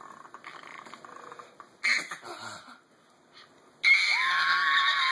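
A baby's long, steady, high-pitched squeal of delight, starting about four seconds in; before it, a short breathy laugh about two seconds in.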